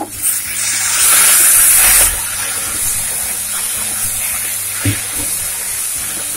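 Cucumber and tomato pieces sizzling in a kadhai as they are stirred with a wooden spatula, a steady frying hiss that swells for about a second near the start. There is a single light knock of the spatula on the pan about five seconds in.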